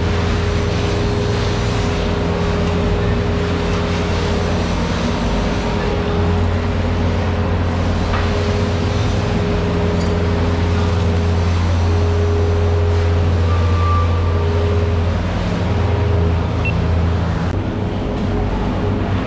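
Steady low mechanical drone of running machinery, with a hum that swells and fades now and then.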